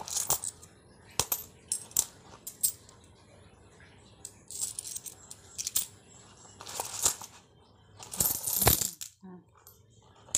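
Coins clinking and jingling in a fabric coin purse as they are dug out and tipped onto the floor. It starts as a few separate clinks, then comes in longer jingling bursts, the loudest just before the end.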